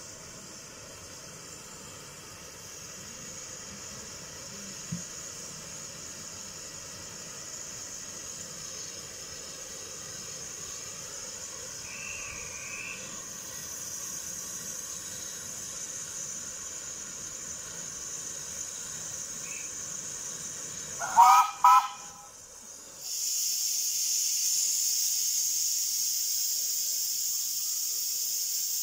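Green Goddess, a 15-inch gauge one-third-scale LNER A1 Pacific steam locomotive, simmering with a steady hiss of steam. After about twenty seconds it gives two short whistle blasts. Then a loud rush of steam comes from its open cylinder drain cocks.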